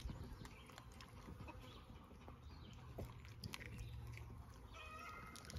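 Faint handling sounds of fingers working and tearing the skin at the neck of a freshly plucked chicken carcass: scattered small clicks over quiet outdoor background, with a faint buzz near the end.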